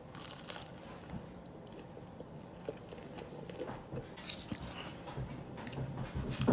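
Faint chewing and biting of French bread, with a few short crunchy mouth sounds.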